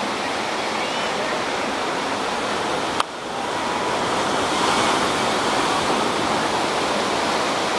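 Ocean surf breaking and washing up a sandy beach: a steady rushing hiss of waves, with one sharp click about three seconds in.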